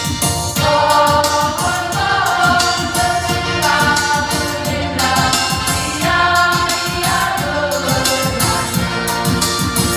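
Youth choir singing an Indonesian church hymn in parts over a steady beat.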